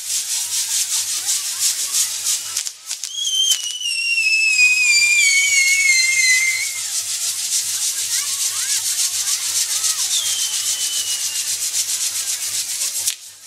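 Fireworks on a castillo firework tower fizzing with a rapid crackle, with a long falling whistle about three seconds in and a shorter one near ten seconds. The fizz dips briefly before the first whistle and dies down near the end.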